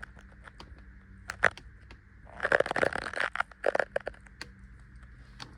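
Handling noise: a sharp click about a second and a half in, then about a second and a half of crackling and clicking, as parts are moved around by hand.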